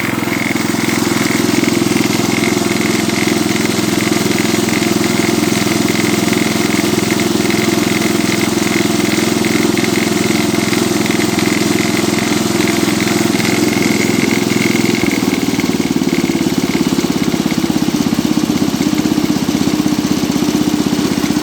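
Cub Cadet 86 garden tractor engine running steadily, with a thin high-pitched tone over it that wavers and fades out about three-quarters of the way through. The tractor has a crazy sound that comes randomly, which the owner cannot yet place and thinks is something coming loose.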